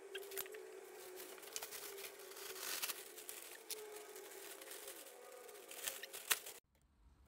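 Large plastic rubbish bag rustling and crinkling with many small crackles as it is unfolded and handled, played back sped up; it cuts off suddenly near the end.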